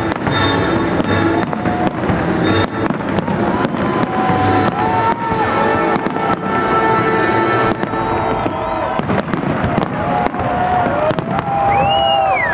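Aerial fireworks bursting overhead: a rapid run of sharp bangs and crackles that goes on throughout.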